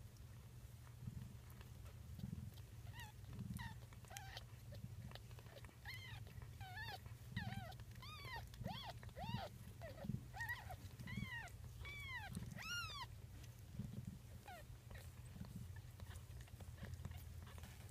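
Newborn ragdoll kittens mewing: a run of short, high, rising-and-falling squeaky mews, about two a second, from a few seconds in until near the end. A steady low rumble runs underneath.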